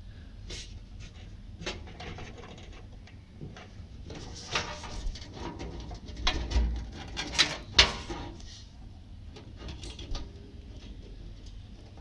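Power-supply cables rustling and plastic connectors clicking and knocking against the steel PC case while the CPU 12 V power cable's connector is fitted to the motherboard, with several sharp clicks between about six and eight seconds in.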